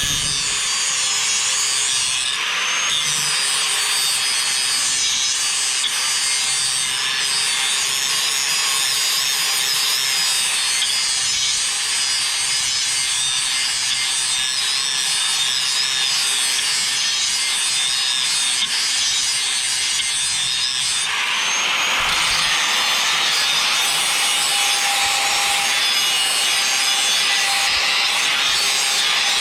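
Electric grinder running with a steady whine, its wheel grinding the edge of a worn steel lawn mower blade clamped in a vise to sharpen it. About 21 seconds in the grinding noise grows louder.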